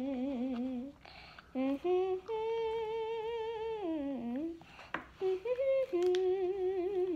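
A young girl humming a tune with her lips closed, in short phrases with a long held note in the middle that slides down before she carries on.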